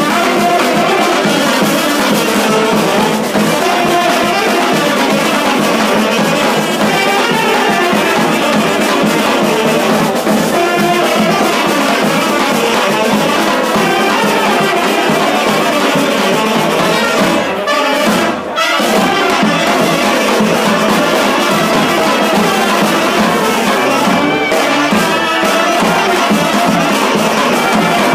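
Street brass band playing in full: trumpets, trombones, clarinets and saxophones over a bass drum. The music breaks off for a moment about eighteen seconds in, then carries on.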